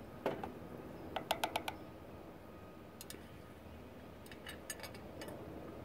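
Faint, sharp clicks and taps: a quick run of about five a little over a second in, then a few more scattered near the end, as a wire hook knocks against a copper part and the glass dish it sits in.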